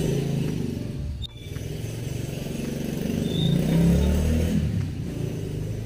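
A vehicle's engine running and revving as it pulls away, rising to its loudest about four seconds in and then easing off.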